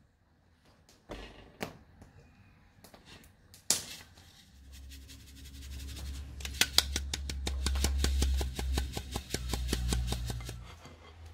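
A round metal sieve of flour-and-butter crumb being tapped by hand to sift it, a fast, even run of ticks at about seven a second over a low rumble of handling. A few scattered knocks come before the tapping starts.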